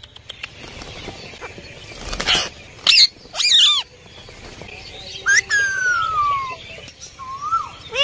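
Indian ringneck parakeets calling. A brief flutter of wings comes about two seconds in, then a couple of short curving squawks. After that comes a long falling whistle and, near the end, a shorter whistle that rises and falls.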